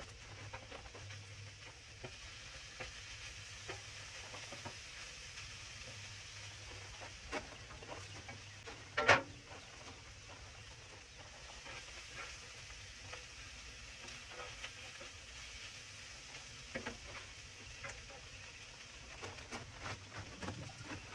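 Roast beef hash and pancakes sizzling as they fry, with scattered light clicks and scrapes of a utensil stirring them. One sharp, louder knock about nine seconds in.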